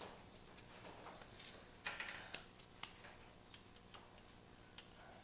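A louder clatter about two seconds in, then a string of light, irregular clicks and ticks.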